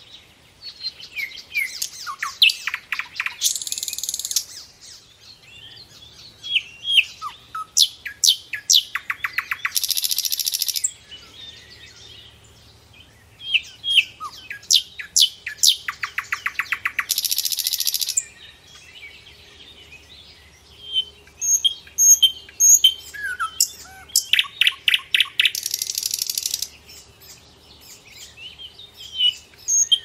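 Songbirds chirping and calling, with quick down-slurred notes and rapid trills. A dense, high rattling burst lasting one to two seconds comes back about every seven seconds.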